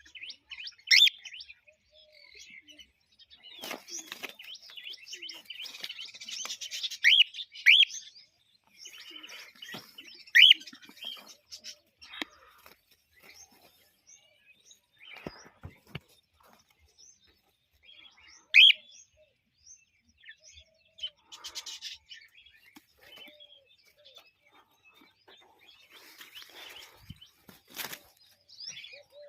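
Male cockatiel calling: about five loud, sharp rising chirps spaced irregularly, with softer chirping in between.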